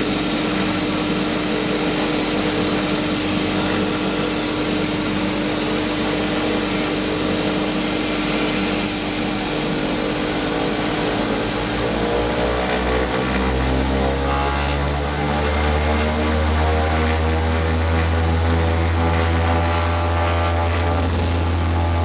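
de Havilland Canada DHC-6 Twin Otter's twin PT6A turboprop engines heard from the cockpit, spooling up as the power levers are advanced for the take-off roll. A high turbine whine rises in pitch about a third of the way in, and the low propeller drone swells and climbs from about halfway.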